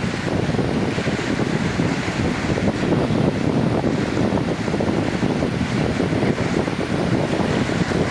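Sea waves breaking and washing on a beach, a steady rushing surf with wind buffeting the microphone.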